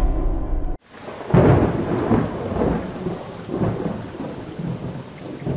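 Background music cuts off, then a thunderstorm: rumbling thunder over steady rain, the loudest roll just after the music stops, with smaller rolls as it fades.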